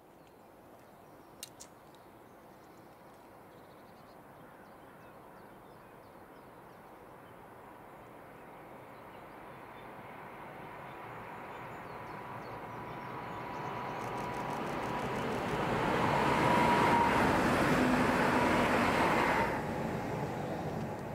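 Electric passenger train approaching and passing close by. Its running noise grows steadily louder for about fifteen seconds and peaks with a steady whine as it goes past. The sound drops away suddenly near the end. Two faint clicks come about a second and a half in.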